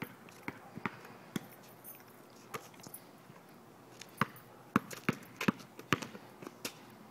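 Basketball bouncing in a series of sharp thuds, spaced out at first and coming faster from about four seconds in.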